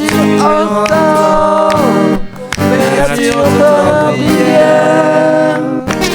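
Song with a sung vocal line of long held notes over guitar accompaniment.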